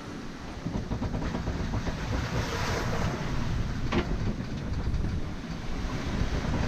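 Sea wash and wind aboard a sailing ship: a steady rushing noise with low rumble, swelling near the middle, and one sharp knock about four seconds in.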